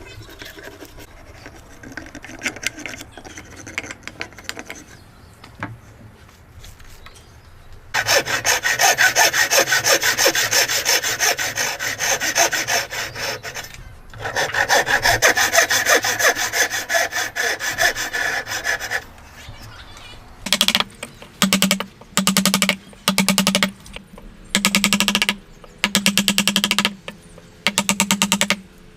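Hand saw cutting wood: quiet rubbing and scraping at first, then from about eight seconds in loud, fast sawing with a short break, then slower, separate strokes about once a second.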